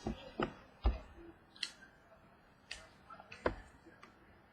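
Trading cards being handled and flipped through by hand: scattered soft clicks and taps as cards are slid off the stack and set down, about half a dozen over the few seconds.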